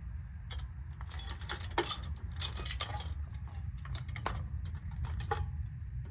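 Metal hand tools clinking and rattling against the Discovery 2's suspension parts, a scatter of sharp clinks and knocks, busiest in the first half, over a steady low hum.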